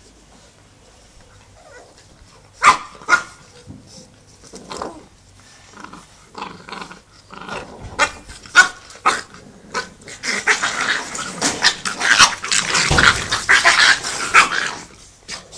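Staffordshire bull terrier puppies play-fighting, growling and barking. Two sharp barks come about two and a half seconds in, followed by scattered short ones. The last five seconds hold a dense run of overlapping growls and yaps.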